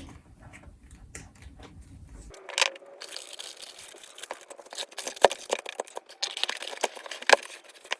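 Paper and plastic packaging rustling and crinkling as it is handled, with scattered sharp clicks and taps, two of them standing out near the end.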